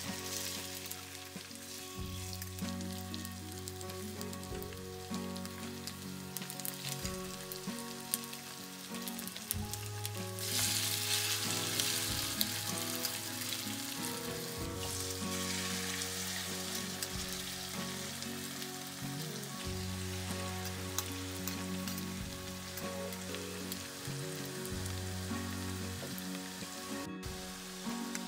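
Food frying in hot oil in a pan, a steady sizzle that swells louder for several seconds about a third of the way in.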